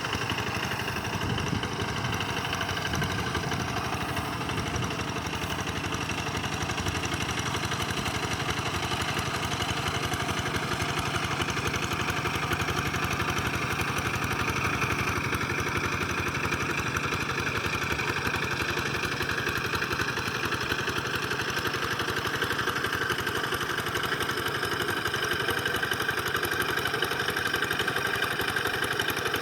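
Small tractor engine running steadily while plowing a wet rice paddy, with a slight, slow drift in pitch.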